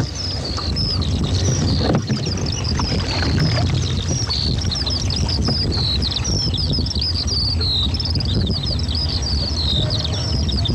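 Rapid high chirping birdsong, several quick falling notes a second, over a steady low rumble.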